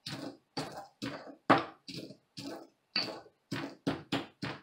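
Dry eggshells being crushed with a pestle in a mortar: a series of short crunches, about two or three a second, the loudest about one and a half seconds in.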